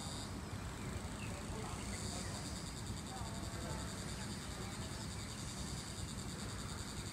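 Insects calling from the woodland: a steady high-pitched buzzing chorus with a fine rapid pulse that grows stronger about two seconds in, over a low rumble of background noise.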